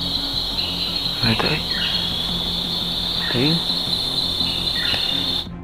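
Nighttime insect chorus: a steady, high-pitched trill of crickets or katydids that cuts off suddenly near the end.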